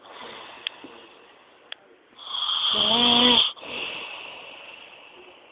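A man snoring heavily in his sleep. After a soft breath, a loud rattling, buzzing snore comes about two seconds in, lasts just over a second and cuts off sharply. A softer breathy sound follows and slowly fades.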